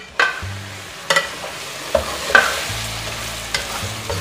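Chicken, chopped tomatoes and green chillies sizzling in oil in an aluminium pot while a spoon stirs them, knocking and scraping against the pot about once a second.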